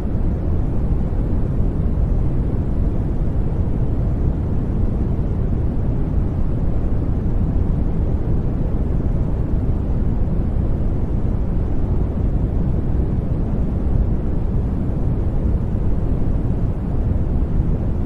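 Steady sleep-aid noise track: an even, deep hiss with most of its energy low down and little at the top, closer to brown noise than to flat white noise.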